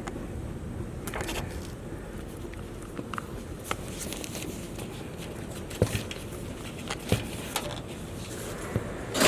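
Scattered light knocks and clicks over a steady background noise, with a louder thump near the end.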